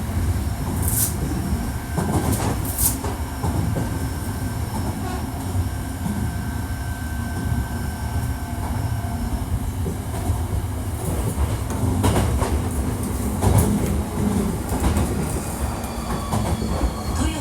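Running sound inside a Hankyu 1300 series electric commuter car under way between stations: a steady low rumble of wheels on track, with a few sharp clacks early on. A thin whine falls in pitch near the end as the train begins to slow.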